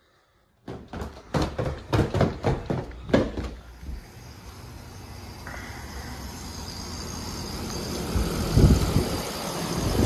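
Carrier split-system outdoor condenser unit running steadily, with the compressor and fan humming after its shorted contactor was replaced. The hum grows louder toward the end. It is preceded by a few seconds of irregular knocks and rustles and has one low thud near the end.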